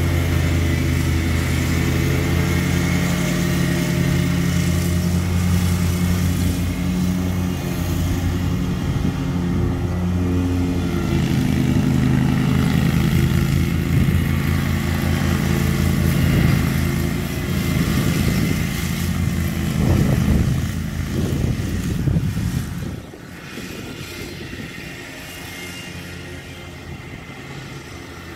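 Zero-turn riding mower's engine running steadily while cutting grass, its pitch wavering for a few seconds, then dropping suddenly to a quieter hum near the end.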